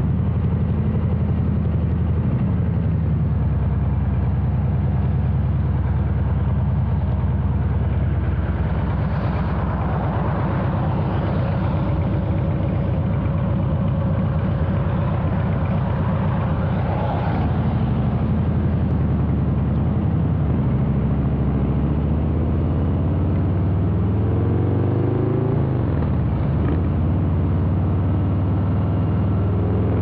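Harley-Davidson Breakout's 117 Milwaukee-Eight V-twin running through a Rinehart exhaust while riding, a deep steady rumble with the revs climbing twice near the end.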